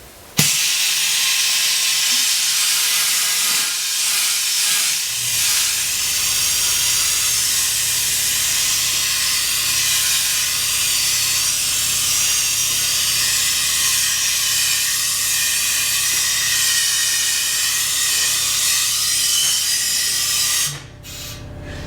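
Mini air compressor blowing a steady jet of air with a loud hiss, as used to clear shavings out of a hollow form. A low hum joins about five seconds in, and the air cuts off near the end.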